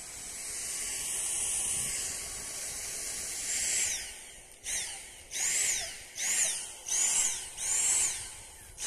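Dyson DC59 Motorhead cordless stick vacuum running with a steady high whine. Its motor then starts pulsing, surging up and down in pitch about three times every two seconds, because its narrow air path is blocked.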